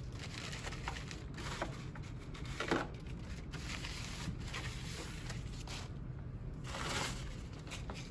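Brown paper towels rustling and crumpling under a gloved hand wiping the counter, with a louder crinkle about a third of the way in and another near the end, over a steady low room hum.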